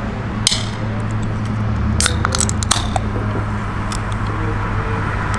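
A few sharp clicks and a short hiss, with a cluster of clicks about two seconds in, over a steady low hum.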